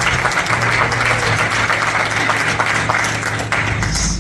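Church congregation applauding, a dense steady patter of many hands clapping, with a low steady note held underneath.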